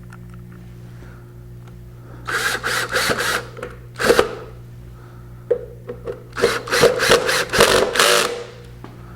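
Power drill driving wood screws into plywood in quick trigger bursts, two runs of several short pulses each, with a single short burst between them.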